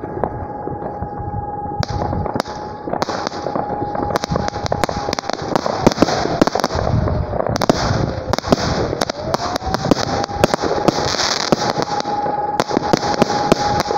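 A firework battery (cake) firing: many sharp bangs in quick succession as shells launch and burst, with a crackling hiss joining in about two seconds in. A steady high tone runs underneath and dips in pitch for a moment after about eight seconds.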